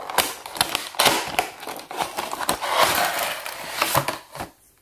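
A small cardboard toy box being opened by hand and its clear plastic insert handled: continuous rustling and crinkling with many light clicks and taps, dying away near the end.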